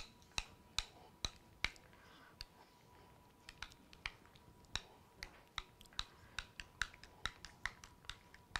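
Spoon clinking against a glass mixing bowl while stirring a thick mix of sour cream and sweetened condensed milk: sharp clicks about two to three a second, with a short lull about two seconds in.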